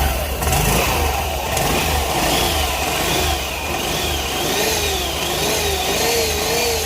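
Honda Grazia BS6 scooter's single-cylinder engine running at idle, with a whine from the gearbox that wavers up and down in pitch, coming in about two seconds in. The mechanic diagnoses it as a failing gearbox bearing.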